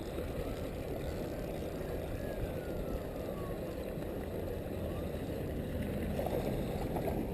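Steady low rumbling noise, with a faint falling whistle about two seconds in.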